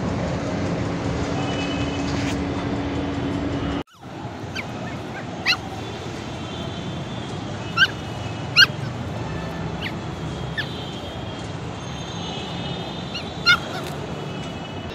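A steady mechanical hum with a low tone, cut off suddenly about four seconds in. After the cut there is quieter background noise and a handful of short, high squeaky yelps from puppies at play.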